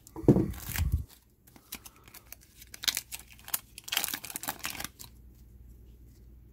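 A foil trading-card pack being cut open with scissors, then the foil wrapper crinkling and stiff cards clicking and sliding as they are pulled out and flipped through by hand, with a low bump near the start. The rustling and clicking die down about five seconds in.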